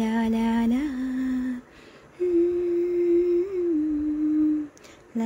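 A woman humming a slow tune: two long, steadily held notes with a short pause between them, each with a small turn in pitch near its end.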